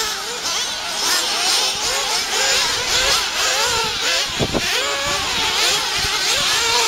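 Small nitro engines of radio-controlled off-road buggies on the track, revving up and down as they race, several whining tones overlapping. A short thump about four and a half seconds in.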